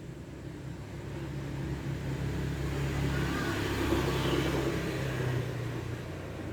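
A motor vehicle passing by: its engine hum and road noise swell to a peak about four seconds in, then fade away.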